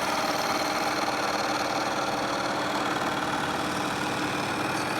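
Milling machine running steadily, a constant motor hum with several steady tones over it.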